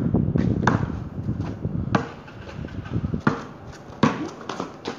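A basketball bouncing on concrete pavement, four sharp slaps a little over a second apart, with sneakers scuffing and shuffling on the concrete.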